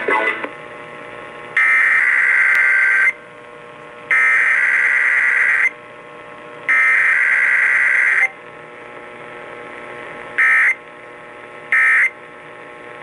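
Emergency Alert System (EAS) SAME data tones on a radio broadcast: three long, harsh buzzing bursts of digital header data about a second apart, followed by three short bursts, the end-of-message code, marking a Required Weekly Test.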